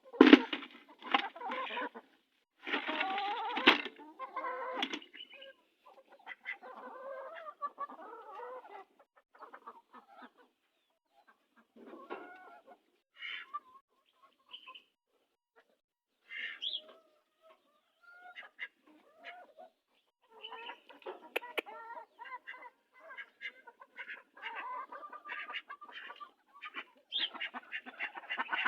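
A flock of chickens clucking in short, irregular calls. The calls are thickest in the first few seconds, thin out in the middle, and grow busy again in the last third.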